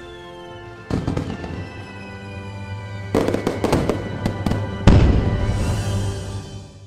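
Fireworks going off over music: three bangs about two seconds apart, each followed by crackling, the third the loudest, with a falling whistle trailing off at the start.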